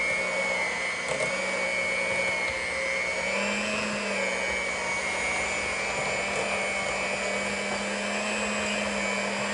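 Electric hand mixer running steadily, its beaters churning through thick mashed-potato filling in a glass bowl: a continuous motor hum with a high whine, the pitch wavering slightly as the load changes.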